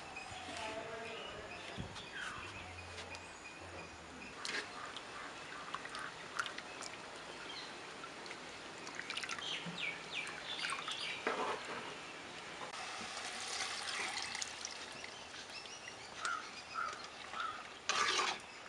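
Grated coconut squeezed by hand in water for coconut milk, the liquid trickling and splashing, with scattered small bird chirps. A louder noisy burst comes near the end.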